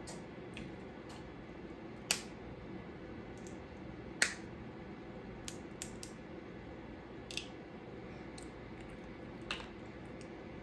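A handful of short, sharp clicks and taps, about six spread unevenly, the loudest two about two and four seconds in, over a steady low hum.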